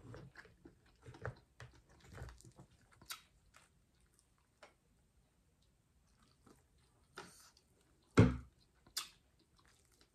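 A person chewing food close to the microphone, with small wet clicks and bites coming in scattered spells and a pause in the middle. About eight seconds in comes one louder low thump, the loudest sound.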